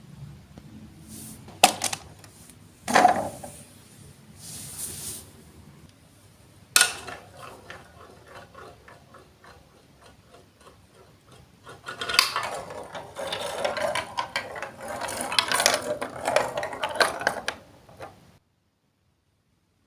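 Marbles rolling and clattering along a plastic Lego Duplo block track, with a few sharp clicks early on, then long runs of fast rattling. The sound cuts off suddenly near the end.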